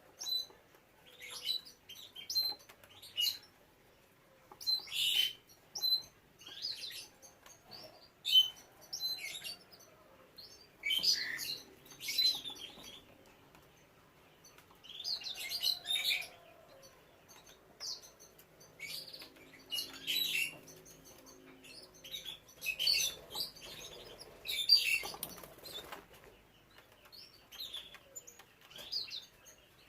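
Caged canaries chirping in short high notes, with repeated bursts of wing fluttering scattered irregularly throughout.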